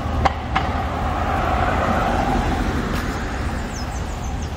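Street traffic: a car passing on the road, its tyre and engine noise swelling and fading over a steady low rumble, with two light clicks near the start.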